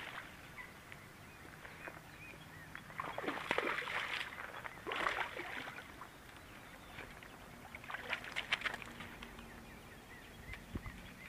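Water splashing in several short bursts: a hooked largemouth bass thrashing at the surface as it is reeled in to the bank.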